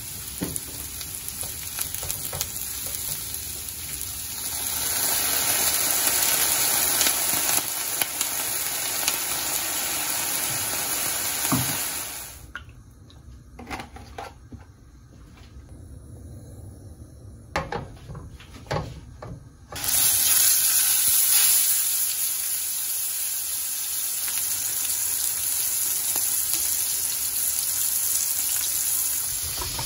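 Sliced mushrooms sizzling in a frying pan. About two-thirds of the way in, after a quieter stretch broken by a few clicks, the hiss comes back suddenly and loudly as a steak sears in hot oil.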